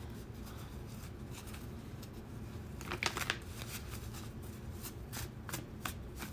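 A deck of oracle cards shuffled by hand: a short flurry of card flicks about three seconds in, then a run of quick light snaps near the end.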